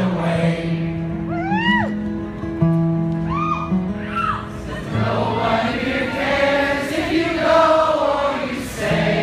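Live acoustic guitar strumming held chords while a concert audience sings along in a blur of many voices, strongest from about halfway through. A few high sliding vocal calls rise and fall between one and four seconds in.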